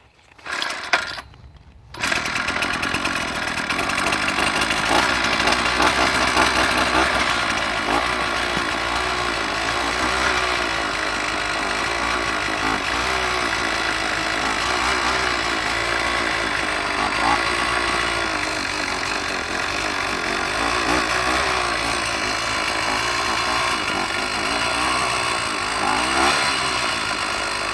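Strike Master ice auger's Tecumseh engine, with a replacement aftermarket carburetor, giving a short burst about a second in. It then catches about two seconds in and keeps running steadily with the choke off.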